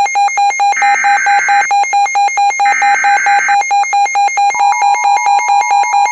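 Electronic emergency alert tone: a rapidly pulsing high beep, with a harsher buzzing tone laid over it for about a second at a time. About four and a half seconds in, a second, slightly higher tone joins, making a two-tone alert sound.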